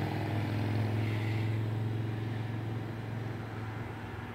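A steady low mechanical hum, like a motor or engine running, easing slightly near the end.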